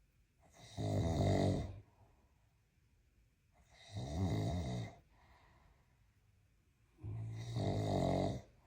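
Mastiff snoring: three long snores about three seconds apart, each lasting over a second.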